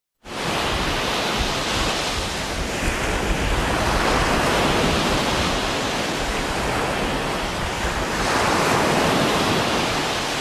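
Steady rushing of wind and sea surf that swells and eases slowly, with wind buffeting the microphone.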